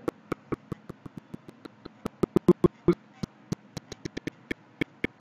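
A rapid, irregular run of clicks, several a second, each carrying a sliver of a man's voice: video-call audio breaking up over a poor connection.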